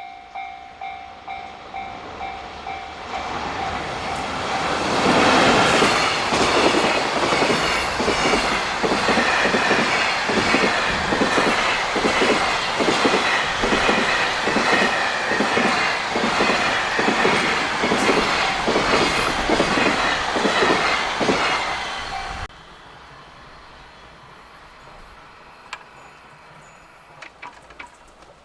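Level-crossing alarm ringing while an EF65-hauled container freight train passes, its wagon wheels clacking over the rail joints in a steady rhythm. The sound drops away suddenly near the end, leaving a much quieter background with a few clicks.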